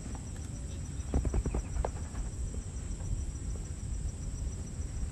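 Insects trilling steadily in a high, even buzz over a low rumble of wind on the microphone, with a few soft knocks about a second in.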